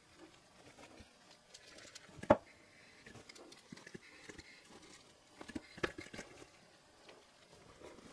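Faint handling noises of a cone-type bearing packing tool holding a greased tapered roller wheel bearing, turned in gloved hands, with scattered clicks and knocks; one sharp click a little over two seconds in and a few more around six seconds.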